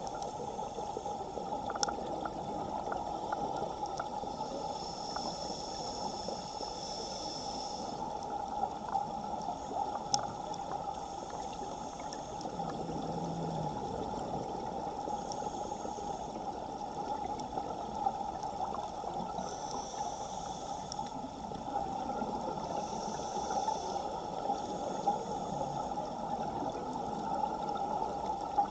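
Underwater ambient sound in a strong current, picked up by a camera in its housing: a steady rush of water with scattered faint clicks, and higher hissing surges that come and go every several seconds.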